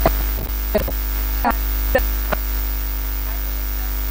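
Steady electrical mains hum in the audio line, with about five short faint ticks in the first two and a half seconds.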